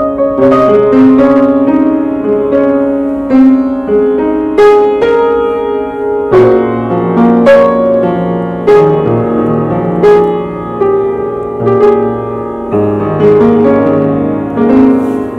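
Piano being played: a melody of struck notes over held chords and bass notes, each note ringing on into the next.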